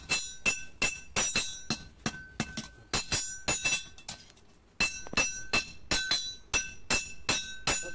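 Hand hammer striking a red-hot spring-steel blade for a date-palm tapping knife on a steel anvil block. The blows come about three a second, each with a bright metallic ring, and pause for about a second near the middle before going on.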